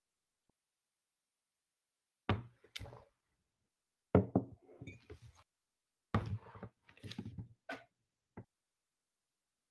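A few irregular knocks and thumps with some handling noise close to a desk microphone, starting about two seconds in.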